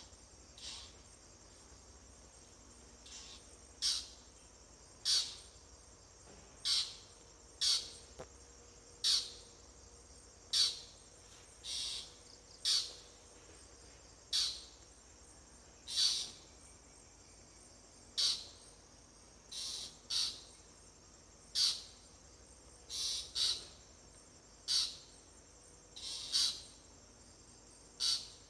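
A bird giving short, high chirps, one every one to two seconds, over a steady chorus of crickets.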